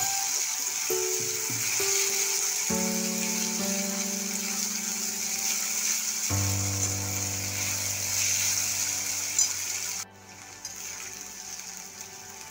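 Food sizzling as it fries in hot oil in a pan, a steady hiss that cuts off abruptly about ten seconds in.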